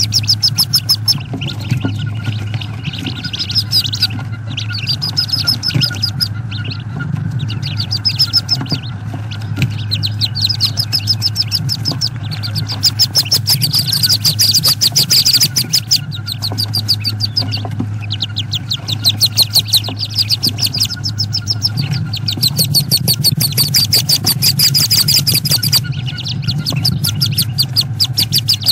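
Wood duck ducklings peeping inside the nest box, a dense run of rapid, high peeps that swells and fades in bouts, over a steady low hum.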